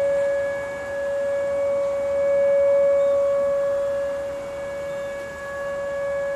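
Whelen electronic outdoor warning siren sounding a steady alert tone for a nuclear power station siren test. It holds one unchanging pitch, and its loudness swells and fades every few seconds.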